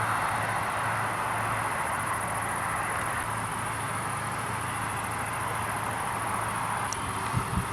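Steady rushing outdoor noise with insects chirping in a fast, high, even trill, and two short low thumps near the end.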